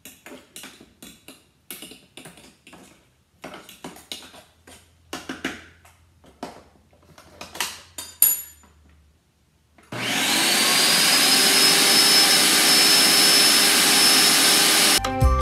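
Light clicks and knocks of a countertop blender's jar and lid being handled, with a brief clink, then about ten seconds in the blender motor starts, its whine rising and levelling off, and runs steadily, puréeing green seasoning, until it cuts off just before the end.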